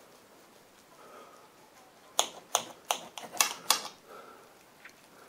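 A kitchen knife clicking against a ceramic plate while cutting through a seitan loaf: about six sharp clicks in quick succession, starting about two seconds in, with faint scraping between them.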